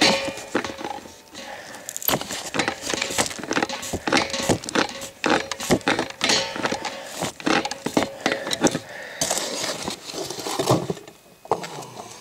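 Pipe wrench turning a threaded pipe joint sealed with thread tape, a galvanized coupling on a brass fitting. It makes irregular metallic clicks and scrapes as the jaws bite, slip and reset on the fitting.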